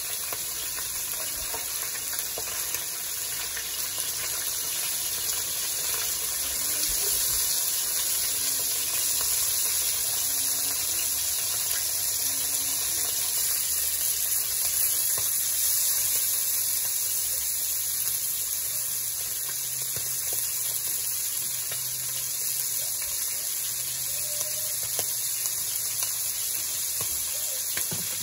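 Skewered sheep kidneys frying in hot oil in a pan: a steady, high sizzling hiss that grows a little louder in the middle.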